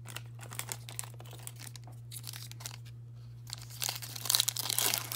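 Foil Pokémon booster pack torn open by hand: a loud crinkling tear starting just before four seconds in, after a few faint clicks of handling. A steady low hum runs underneath.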